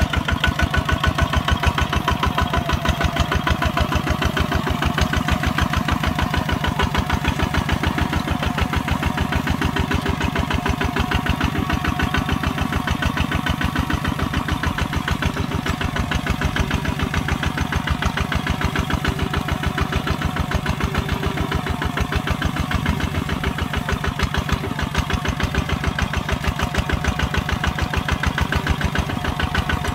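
Kubota ZT140 single-cylinder diesel engine running steadily while plowing, with a fast, even firing beat.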